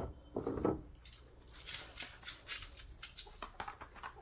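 A dog gives a short throaty grunt, then a run of quick, crisp clicks and ticks for about three seconds.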